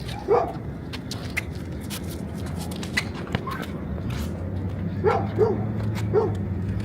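A dog barking in short barks: one near the start and three close together around five to six seconds in, with scattered sharp knocks over a steady low hum.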